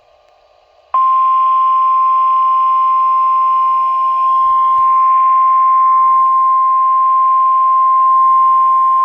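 NOAA Weather Radio warning alarm tone: a single steady, loud tone at about 1050 Hz that comes in about a second in and holds, over the hiss of a radio receiver. It signals that a flood warning is about to be broadcast.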